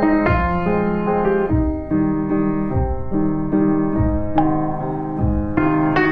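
Background piano music: sustained electric-piano chords changing about once a second over a soft low beat.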